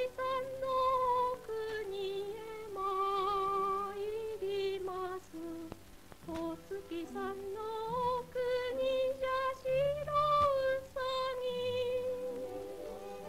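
Slow, lullaby-like melody with vibrato on the held notes over soft accompaniment, from a 1940s film soundtrack.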